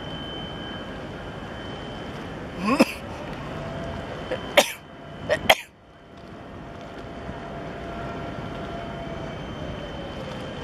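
Steady motor and water noise with a thin high whine, broken by three sharp coughs close to the microphone about three to six seconds in.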